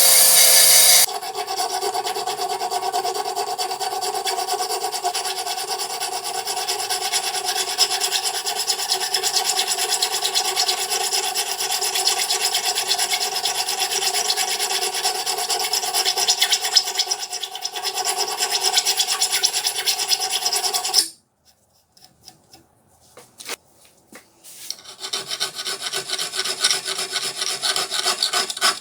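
Steady abrasive rubbing, like something being sanded or filed, on an old screwdriver being restored; it runs evenly and cuts off abruptly about two-thirds of the way through. A few light knocks follow, then rhythmic back-and-forth strokes start up near the end.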